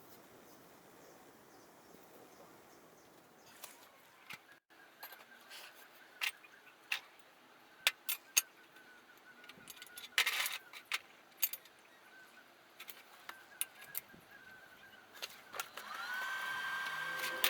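Small steel parts clinking and knocking as they are handled, in scattered sharp clicks. Near the end, an electric power tool spins up with a rising whine and runs steady.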